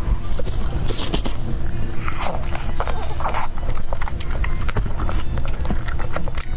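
Close-miked eating: chewing and biting chicken, with many sharp crackling clicks over a low thudding chew.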